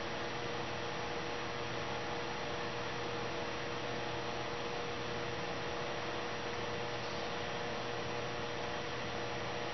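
Steady background hiss with a constant electrical hum, and no other distinct sound.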